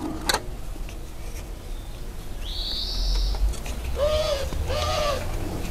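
A dove cooing twice, two short arched notes near the end, after a brief high whistling call that rises and then holds. A few light clicks come earlier from hands working on a bicycle rim-brake pad.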